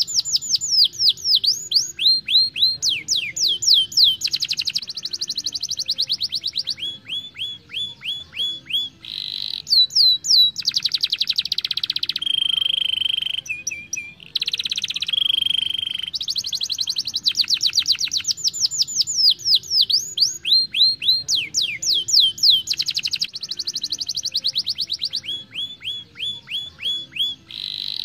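Domestic canary singing a continuous song of fast trills. Each run repeats one note that drops in pitch, and the speed and pitch change from phrase to phrase. About halfway through come two longer, steady rolling notes.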